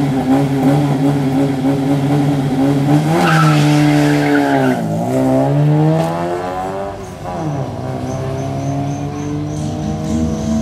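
Fiat 131 rally car's engine held at high revs, then launching hard with a short tyre squeal about three seconds in. It revs up through the gears, the pitch dropping sharply at two upshifts and climbing again after each.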